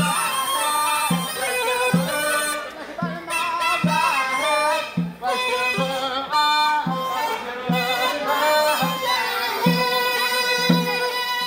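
Traditional Yemeni wedding music: a mizmar reed pipe plays a wavering, bending melody over a large bass drum struck at a steady beat of about one and a half strokes a second.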